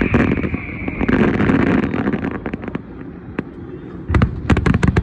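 Fireworks going off: a dense spell of crackling at the start, then scattered pops, and a rapid run of sharp cracks near the end.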